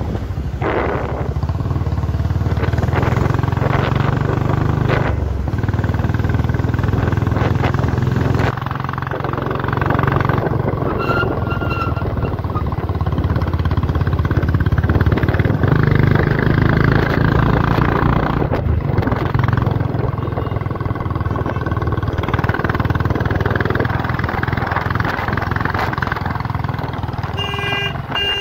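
Royal Enfield Bullet motorcycle's single-cylinder engine running steadily while riding along a road. A few short high-pitched beeps come about 11 seconds in and again near the end.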